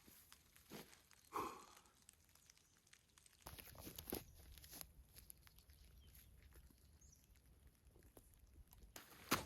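Quiet outdoor handling sounds: faint scattered rustles and clicks, with a brief crunch about a second and a half in and a sharp knock near the end, over a low rumble that starts about a third of the way in.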